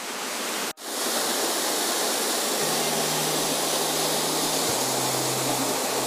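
Waterfall plunging into a rock pool: a steady, dense rush of falling water, broken by a momentary drop-out just under a second in.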